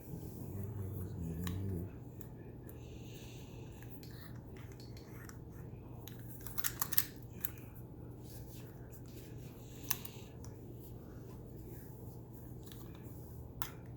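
Metal tool work on a combination lock: a few sharp clicks and snips, the loudest cluster about halfway through, over a steady low hum.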